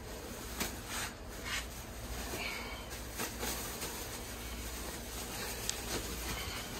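Rustling and soft crinkling as wet fiberglass insulation is pulled out of a wall by hand and pushed into a plastic trash bag, with scattered short rustles over a steady low hum.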